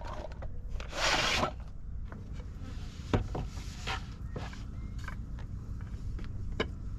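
Camping gear being packed into a wooden storage drawer in the back of an SUV. There is a short rasping rub about a second in, then a few light knocks and clicks.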